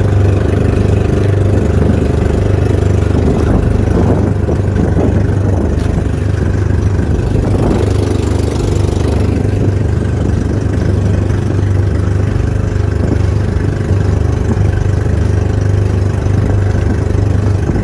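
Engine running steadily with a loud, constant low hum.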